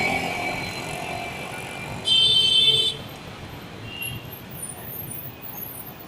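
Outdoor traffic background with a vehicle horn sounding once, a high, steady honk lasting under a second about two seconds in.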